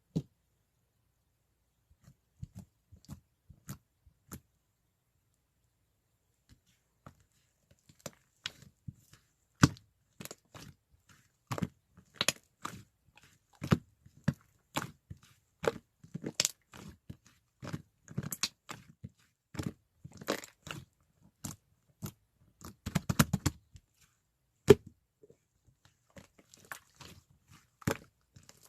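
Irregular sharp clicks, taps and crackles, like small objects being handled close to the microphone. They are sparse at first and then come several times a second, with a quick flurry about three-quarters of the way through.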